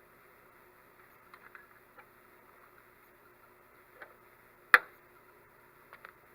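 Hand pop-rivet tool working: a few light clicks, then one sharp, loud snap about three-quarters of the way through as the rivet's mandrel breaks off and the rivet sets, followed by a couple more light clicks.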